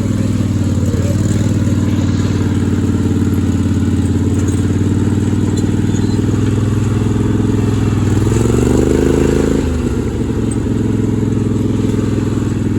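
Small off-road vehicle's engine running steadily under way on a trail ride, speeding up with a rising pitch about eight seconds in, then dropping back suddenly just before ten seconds.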